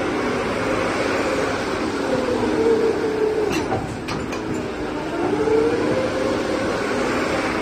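Doosan DX225 crawler excavator's diesel engine and hydraulics running as the boom and bucket are worked. Its hum sags in pitch for a couple of seconds in the middle and climbs back, with a few light clicks in the middle.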